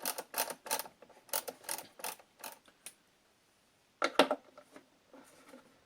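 Ratchet driver with a T27 Torx bit clicking in short strokes, about three clicks a second, as a screw is backed out. After a pause there is a louder single clack about four seconds in, followed by faint handling.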